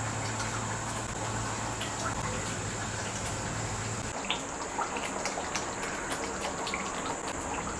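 Thick salna gravy simmering in a kadai, with scattered small popping bubbles that become more frequent after about four seconds.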